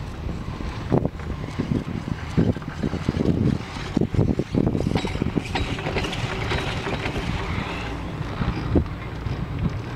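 Chairlift carrier passing over a tower's CCM roller assembly: the rope and grip run over the sheaves with a run of knocks and rumbles in the first few seconds, then one more knock near the end. Wind noise on the microphone underlies it all.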